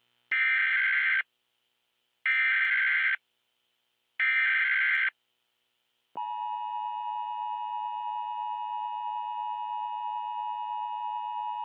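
Emergency Alert System alert tones: three one-second bursts of SAME header data, about two seconds apart, then about six seconds in the steady two-tone EAS attention signal begins and holds.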